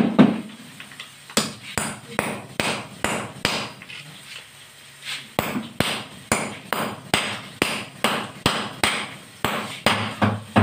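Claw hammer striking a chisel to chip away at the base of a concrete wall: a run of sharp metal-on-metal knocks, a brief pause about four seconds in, then steady strikes at about two to three a second.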